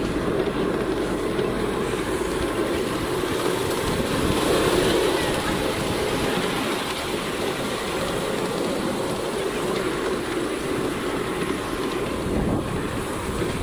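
Miniature ride-on railway train rolling along its narrow-gauge track, a steady rumble of the running train.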